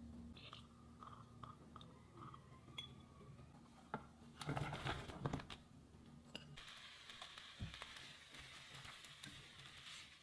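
Sliced zucchini and sweet peppers dropped into a frying pan with a brief rustling clatter about four and a half seconds in, then a steady soft sizzle as they start to fry.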